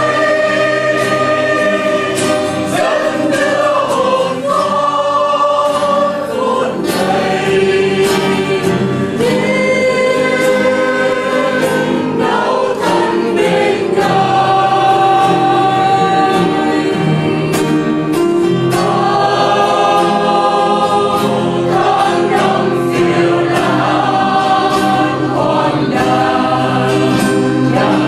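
A Catholic church choir singing a hymn, several voices in harmony.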